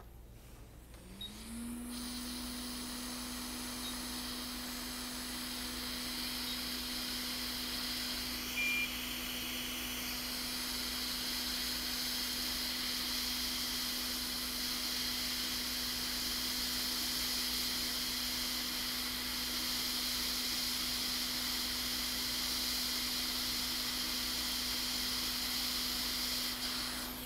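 Quick 861DW hot air rework station blowing on a logic board to desolder the old backlight driver chip. Its blower spins up about a second in, its hum rising briefly in pitch, then runs steadily with a strong airy hiss. There is a single short beep about nine seconds in.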